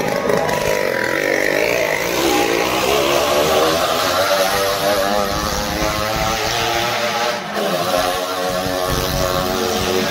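Motorcycle engine revving inside a wooden well-of-death drum as the rider sets off. The revs climb over the first couple of seconds, then run high and waver up and down, with a brief dip about seven seconds in.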